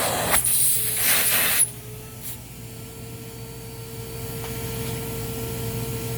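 Hoover WindTunnel Plus canister vacuum running with air rushing loudly through the hose, with some rubbing as the hose is handled. After about a second and a half the rush cuts off sharply as the inlet is sealed for a suction reading, leaving the motor's steady whine, which rises slightly, over a low hum.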